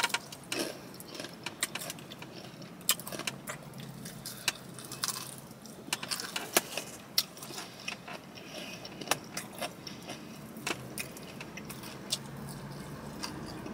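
A person eating a fried chicken wing close to the microphone: irregular sharp crunches and mouth clicks from biting and chewing.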